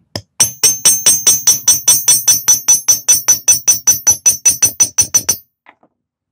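Rapid, evenly spaced metallic strikes, about five a second, each with a high ringing tone. They run for about five seconds and stop abruptly.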